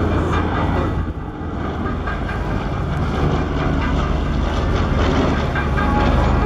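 Lockheed Super Constellation's four Wright R-3350 radial piston engines running with a deep, steady drone; the sound dips briefly about a second in.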